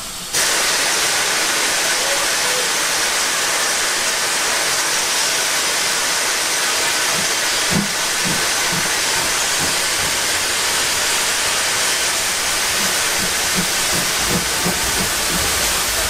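Steam hissing loudly from GWR 1500 class pannier tank locomotive No. 1501. The hiss starts suddenly and stays steady. A few low knocks come from the locomotive about halfway through and again near the end.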